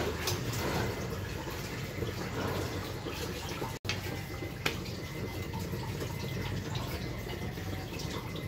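Steady hiss of a gas stove burner heating a cast-iron tawa with a roti on it. There is a light tap about five seconds in, as a wooden spatula turns the roti.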